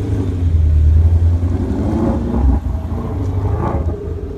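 Ford Mustang engine running with a deep rumble, revving up briefly about two seconds in and then dropping back.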